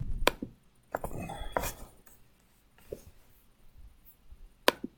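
Computer mouse clicking a few times with short, sharp clicks, the loudest near the end, and faint handling noise between.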